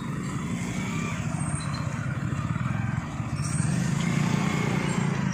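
A motor vehicle engine running steadily: a low, rapidly pulsing rumble that grows a little louder in the second half.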